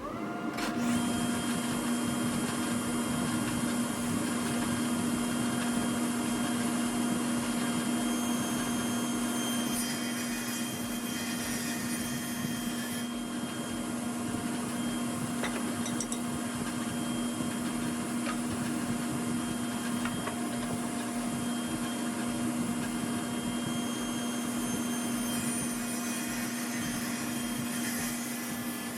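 An electric power-tool motor starts and runs steadily at one constant pitch. The steady whine is overlaid by a faint, irregular rise of noise partway through.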